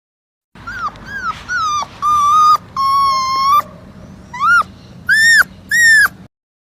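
Puppy whimpering and crying in a string of high-pitched whines. First come three short falling cries, then two longer held whines, then three cries that rise and fall. The sound cuts off abruptly near the end.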